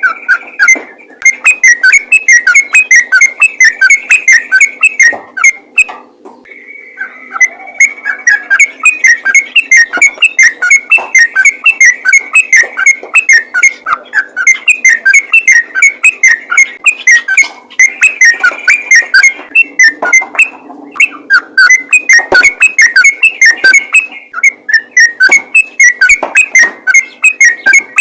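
Yellow-vented bulbul (trucukan) singing a loud, rapid, unbroken stream of short whistled notes, the fast 'ropel' song used to lure other bulbuls, broken only by a few brief pauses.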